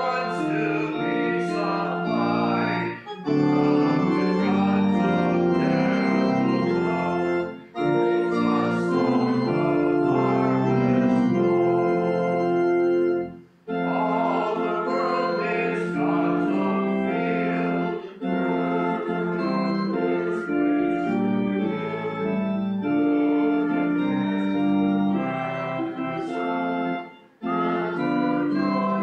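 Organ accompanying a congregation singing a hymn in sustained chords, with a brief break between each line.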